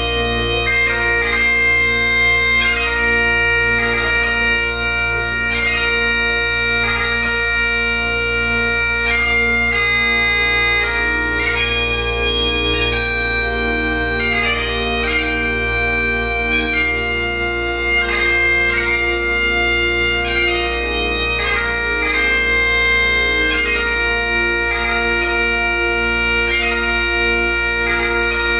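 Bagpipes playing a slow melody over steady, unbroken drones.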